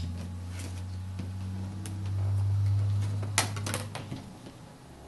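Acrylic quilting rulers being lifted off the fabric and put down, with two sharp clacks about three and a half seconds in, over a steady low hum that swells in the middle.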